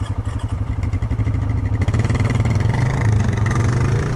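ATV engine running on the trail, the engine picking up and getting louder about two seconds in.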